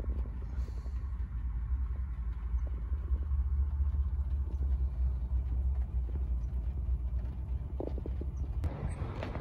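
Steady low rumble with an uneven, gusty level.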